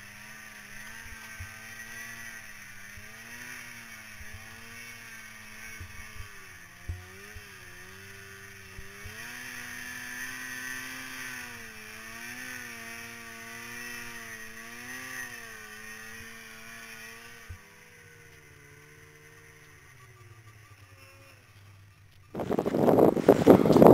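Muffled snowmobile engine, its pitch rising and falling again and again as the throttle changes. About 22 seconds in, a sudden loud rush of wind noise on the microphone takes over.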